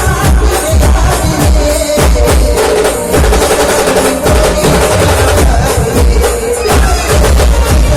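Brass band music at full volume: held melody notes over loud, dense drumming with deep bass drum beats.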